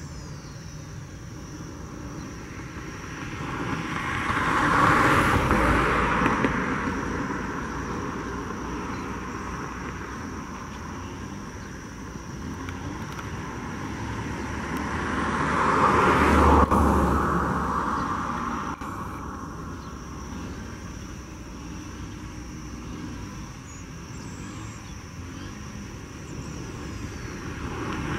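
Airbus A320's jet engines running at taxi power, a steady rushing hum. Two louder swells build and fade over a few seconds, peaking about five and sixteen seconds in.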